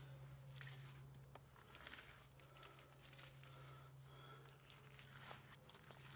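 Near silence: faint soft squelches and pats of wet mud daub being pressed by hand into a pole wall, over a low steady hum.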